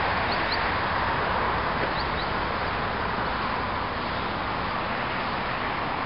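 Steady outdoor background hiss with short, high bird chirps in two quick pairs, the first pair just after the start and the second about two seconds in.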